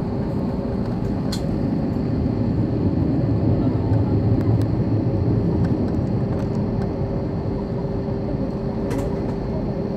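Cabin noise inside a jet airliner taxiing to takeoff: the steady low rumble of the engines with a constant hum, growing a little louder about four seconds in.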